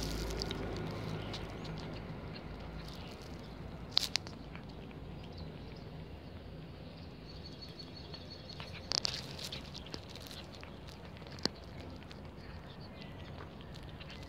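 Calico cat eating soft cheese: faint chewing and licking, with a few sharp clicks about a third of the way in, past the middle and near three-quarters through.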